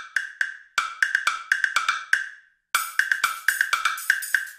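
Intro jingle of quick, clicky percussion hits, about four a second, each with a short bright ring, pausing for half a second about two and a half seconds in before carrying on.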